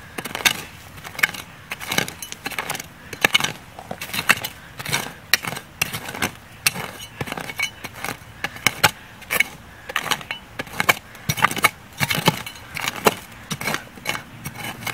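Small hand shovel digging and scraping dry, gravelly soil away from the base of a tree trunk: repeated sharp gritty scrapes, one or two a second, as earth is pulled back to uncover the buried root collar.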